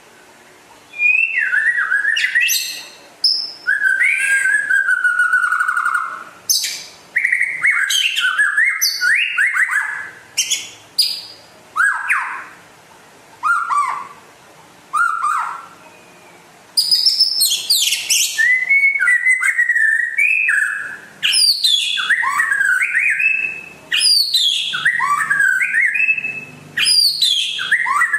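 White-rumped shama (murai batu) singing loud, varied phrases of clear whistles and quick sweeping notes, starting about a second in and coming in bursts with short pauses between them.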